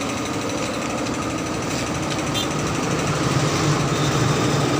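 A machine running steadily with a fast, even knocking rhythm.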